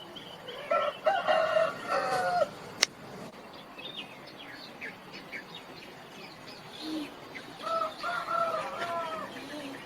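A rooster crowing twice, each crow about two seconds long, the second coming about six seconds after the first. Thin high chirps of small birds sound in between, and there is a single sharp click just after the first crow.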